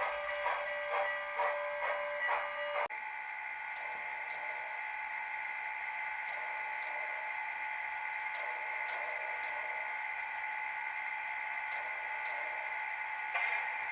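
HO scale model steam locomotive with a DCC sound decoder, chuffing steadily at about two and a half beats a second. Near 3 s the sound cuts off abruptly and gives way to a steady, even whirring hum with high tones.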